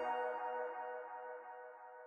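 Background music with held, sustained tones, fading out.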